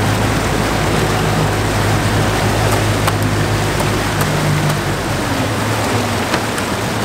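Charter fishing boat's engine running under way, a steady low drone under a constant rush of water and wind noise.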